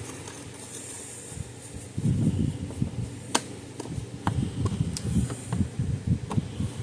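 Hands working on the parts of an electric fence charger: irregular low bumps and rubbing from about two seconds in, with a handful of sharp clicks, as parts are fitted into place.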